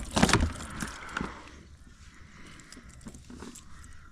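Several sharp knocks and rattles in the first second and a half, then fainter scattered knocks: gear and a freshly landed fish being handled in a kayak.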